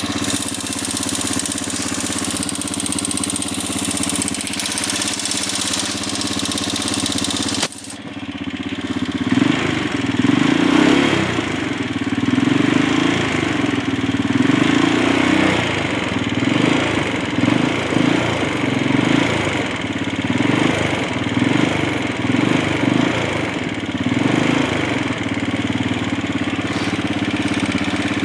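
CG250 motorcycle's air-cooled single-cylinder four-stroke engine running with a ticking noise, which the owner suspects comes from the valves. A steady hiss lies over it for the first several seconds and stops abruptly. The engine sound then swells and falls repeatedly before settling to a steady idle.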